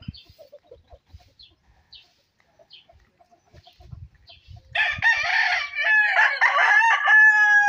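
Rooster crowing loudly, starting about two-thirds of the way in, with a choppy start and then a long drawn-out final note.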